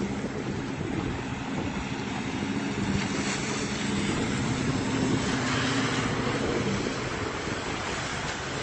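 A steady engine hum under a loud rushing noise; the hum fades out about seven seconds in while the rushing goes on.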